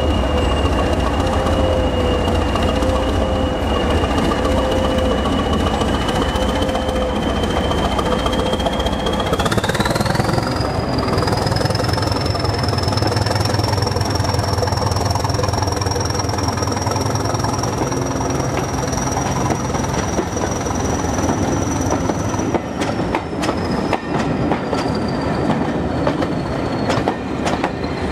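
Hastings diesel-electric multiple unit pulling away. Its diesel engine runs with a high whine that rises in pitch as the engine is opened up about nine seconds in, then eases off after about twenty seconds. Near the end the passing coaches' wheels click over the rail joints.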